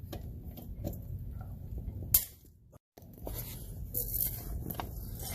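Metal hand tools being handled at a truck wheel: scattered small clicks and knocks, one sharp click about two seconds in, then the sound cuts out for about half a second.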